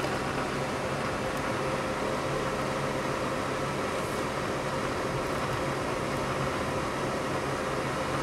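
Citroën car driving at a steady pace, heard from inside the cabin: an even rumble of engine and tyre noise with a steady hum.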